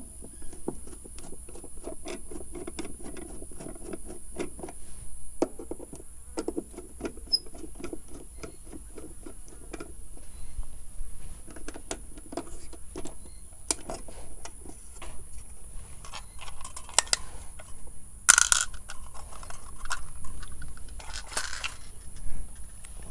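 Phillips screwdriver backing out the screws of a VW Beetle taillight lens: runs of small, rapid clicks and ticks as the screws turn, with two brief scraping noises near the end.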